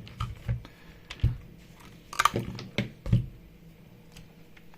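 Irregular light clicks and taps from handling small objects on a workbench, about half a dozen, the loudest two near the middle, then quiet handling noise.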